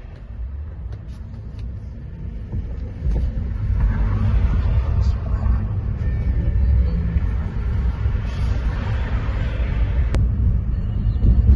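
Low rumble of a car on the move, heard from inside the cabin, growing louder about three seconds in.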